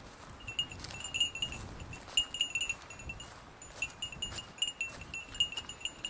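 Scattered short, high tinkling notes like a wind chime, irregularly spaced, over a fluctuating low rumble.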